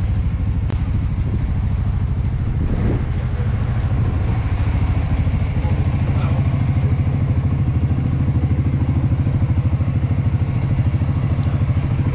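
Scooter engine idling steadily with an even, quick pulsing beat: a BMW C1 fitted with a Suzuki Skywave 400 single-cylinder engine, warming up before a ride.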